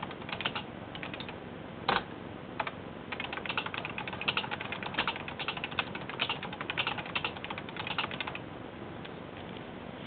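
Typing on the keys of a Casio CW-11 electronic typewriter: a few scattered key clicks, one louder click about two seconds in, then a fast, even run of clicks for about five seconds before it stops.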